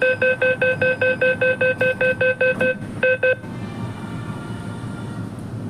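Delhi Metro train's door-closing warning beeper: a fast run of identical electronic beeps, about five a second for nearly three seconds, then two more, cutting off suddenly as the doors shut. After that the train's steady running noise with a faint whine from the traction motors.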